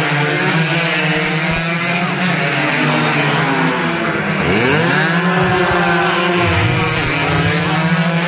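Two-stroke 125 cc underbone race motorcycles running hard. About four and a half seconds in, one passes close and its engine note dips and then climbs again.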